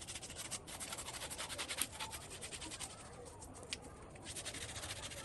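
Fire crackling as the hair of a slaughtered pig's carcass is singed off with a petrol and palm-oil flame: a fast, dense crackle that thins briefly about three seconds in.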